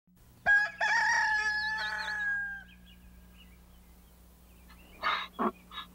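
A rooster crowing once, a long held call of about two seconds. Near the end come a few short, noisy sounds.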